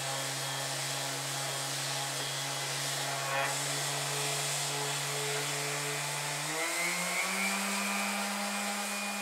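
Electric random orbital sander running steadily against a steel plate. About two-thirds of the way through, its pitch rises and then holds at the higher note.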